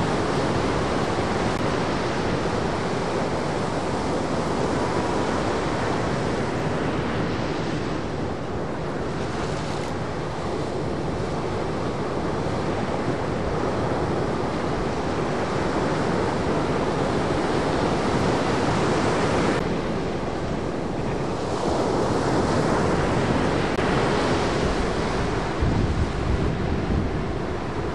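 Ocean waves breaking in a shorebreak, a continuous wash of surf that swells and eases, with wind buffeting the microphone.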